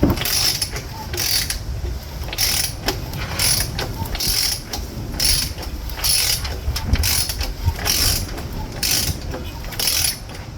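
Socket ratchet clicking in short strokes about once a second as the Nissan QG18DE 1.8L engine is turned over by hand to bring the timing marks into line.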